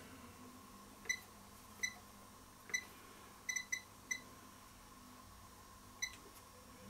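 Tenma programmable DC electronic load giving short high beeps, eight in all at uneven intervals, as its current setting is turned up to 500 mA and the load is switched on. The last beep comes about six seconds in.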